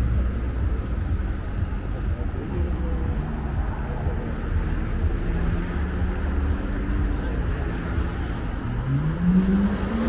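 Street traffic ambience: a steady low rumble, and near the end a motor vehicle's engine rising steadily in pitch as it accelerates.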